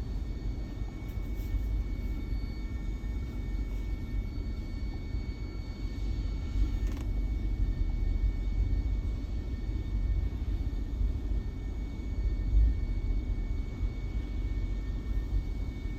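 2010 GMC engine running with a steady low rumble that wavers unevenly in loudness, with a faint steady high whine above it. The engine has a misfire (code P0300).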